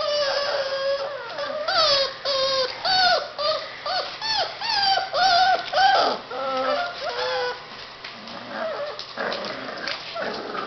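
Young puppies whining and yelping: a string of short, high-pitched cries that bend up and down in pitch, about two a second, growing fainter and more broken for the last few seconds.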